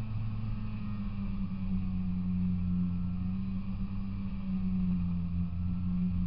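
Polaris Indy 340 snowmobile's two-stroke engine running at a steady, even pitch as the sled cruises over snow.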